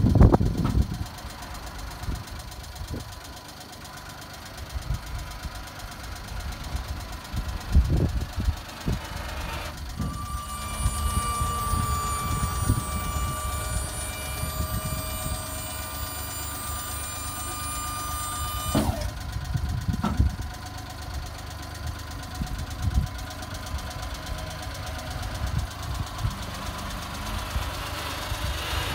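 Suzuki Carry DD51B kei dump truck's small three-cylinder engine idling while the hydraulic tipper bed is lowered. A steady whine joins it from about ten seconds in and stops abruptly near nineteen seconds. A few low thumps are heard along the way.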